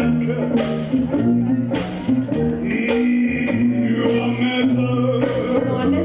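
Small vintage blues band playing live: banjo strumming, sousaphone bass notes, and washboard and cymbal strikes on a steady beat, with a voice singing over them.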